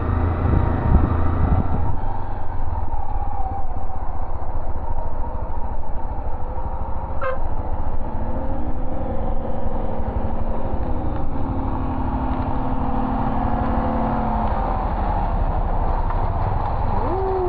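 Honda XRE300's single-cylinder engine running at low speed on a rough dirt road, with wind and road rumble on the handlebar-mounted microphone. A short beep comes about seven seconds in, and a heavy truck's engine is heard close by as the bike passes it in the second half.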